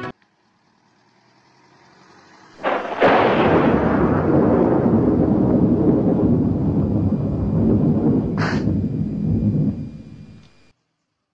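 A dramatic boom-and-rumble sound effect. A faint swell rises for a couple of seconds, then a sudden loud crash about three seconds in gives way to a long, deep rumble. A short bright blip comes near the end, and then the sound cuts off abruptly.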